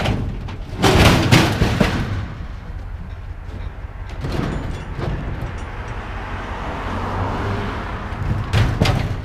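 Scrap metal banging and clanking as pieces on a trailer are shifted and rearranged, with a loud cluster of knocks about a second in and more near the end, over a steady low hum.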